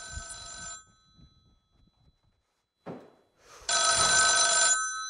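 Rotary desk telephone's bell ringing twice, about three seconds apart; the second ring is much louder and lasts about a second.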